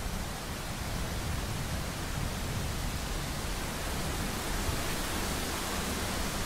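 Steady rain falling, an even, unbroken hiss with no thunderclap.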